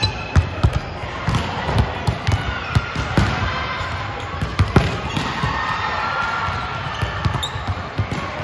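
A basketball being dribbled and bounced on a court during play: a run of low thumps at uneven spacing.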